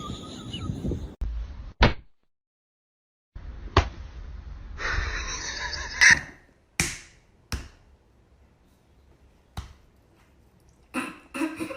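A series of short, sharp smacks and thuds, about six in all and spread unevenly, with a short break of complete silence about two seconds in.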